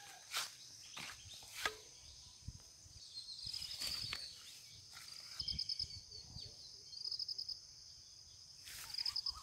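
Faint insect chorus: a steady high-pitched buzz with short pulsed trills that repeat every second or so, crickets or similar insects. A few brief rustles and knocks from walking through dry grass and brush sound now and then.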